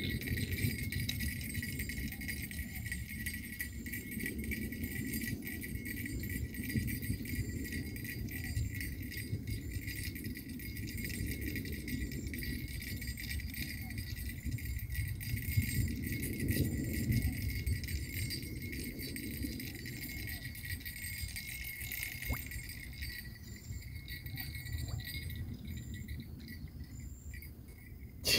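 Steady high insect chirring with a short chirp repeating about every second, over a low rumble that swells and fades.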